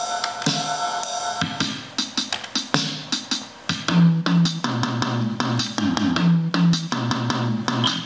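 Circuit-bent Roland TR-505 drum machine playing a rapid pattern of electronic drum hits. Its sounds are altered by bends routed through a touchscreen-controlled solid-state patch bay. Held tones sound early on, and a low pitched repeating line joins about four seconds in.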